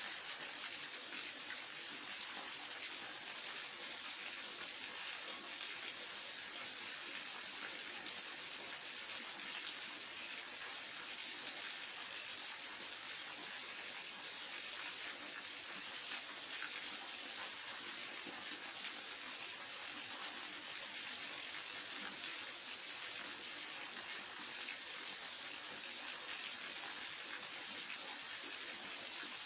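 Waterfall rushing steadily, an even hiss-like wash of falling water with its weight in the upper range, unchanging throughout, with a single brief click just after the start.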